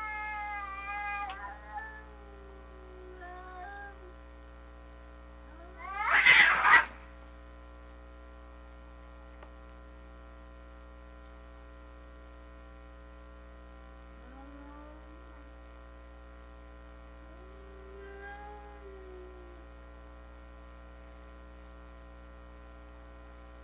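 Two cats caterwauling at each other in a territorial standoff. Long wavering yowls come at the start, a loud harsh burst about six seconds in, then two low drawn-out moans later, all over a steady electrical hum.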